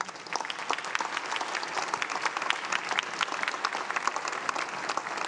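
Congregation applauding: many hands clapping steadily at the close of a speech.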